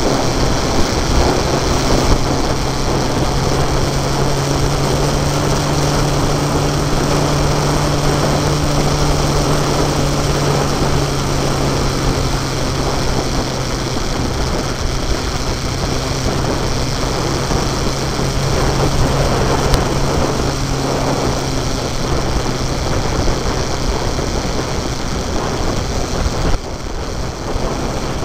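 Motorcycle engine running steadily at road speed under loud wind rush over the microphone, easing off slightly near the end.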